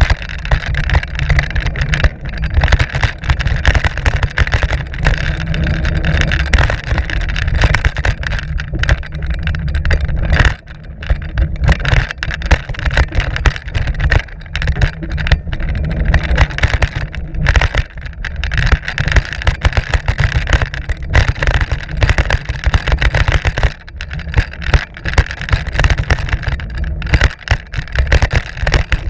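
Mountain bike ride noise heard from a camera on the bike: wind buffeting the microphone and tyres rumbling over the dirt trail, with constant rattles and knocks from the bike over rough ground. The noise dips briefly about ten seconds in.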